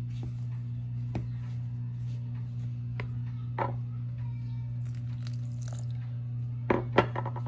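Wooden spoon stirring a dry rye-flour dough in a plastic mixing bowl: a few scattered scrapes and knocks, then a quick cluster of louder knocks of the spoon against the bowl near the end. A steady low hum sits underneath.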